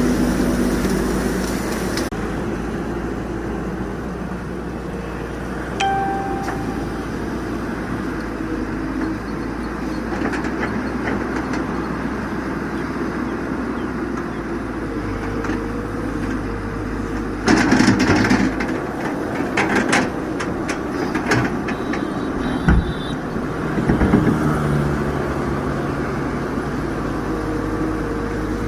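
Tata Hitachi excavator's diesel engine running steadily. About two-thirds of the way through there is a burst of loud clattering, followed by several sharp knocks.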